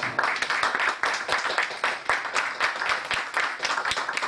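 Audience applauding: many hands clapping at once, with a few sharper single claps standing out close by.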